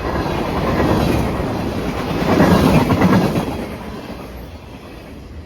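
Manifest freight train rolling past, the wheels clattering over the rail joints; it swells louder a little past halfway, then fades.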